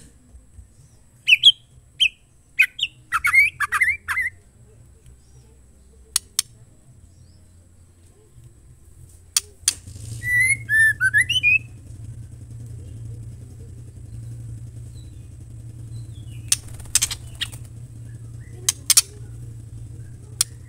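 Female white-rumped shama calling: a quick run of short, sharp chirps and squawky notes, then a second run of gliding, looping notes about halfway through, with a few sharp clicks in between. A low steady hum comes in about halfway and continues.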